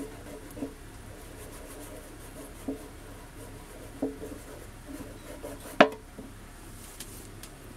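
A flat card rubbed over masking tape on a metal tin to press vinyl lettering down: a faint scratchy rubbing with a few soft knocks, and one sharp tap about six seconds in.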